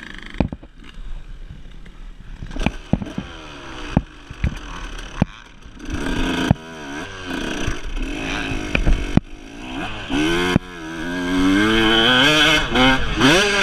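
KTM 150 SX two-stroke dirt bike engine heard from on the bike, running at low revs with scattered knocks and clatter, then revving up and down harder and louder from about halfway through as it accelerates, its pitch climbing and dropping with throttle and gear changes.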